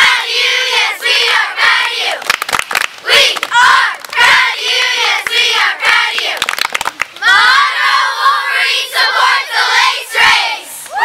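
A group of young girl cheerleaders shouting a cheer together, clapping in rhythm between the words.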